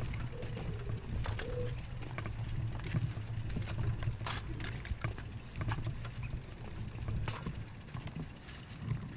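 Bicycles being wheeled by hand over brick paving: irregular clicks and rattles over a low steady rumble.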